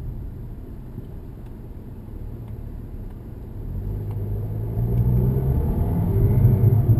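2007 Audi A3 with a six-speed DSG gearbox accelerating: running quietly for about three seconds, then the engine note grows steadily louder as the car picks up speed.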